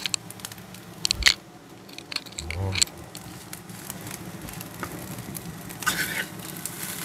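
Metal spatula scraping and clicking against a nonstick wok as egg fried rice is stirred and pressed, over a faint steady sizzle of frying. Sharp clicks of the spatula come at the start, about a second in and near three seconds.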